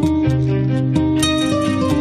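Instrumental background music of quickly picked plucked-string notes over a steady bass.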